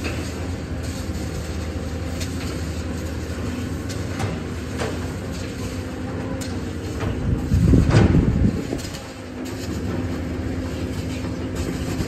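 Excavator's diesel engine running steadily with a low hum, with scattered metallic knocks and clanks; about eight seconds in, the rumble swells louder for about a second before settling back.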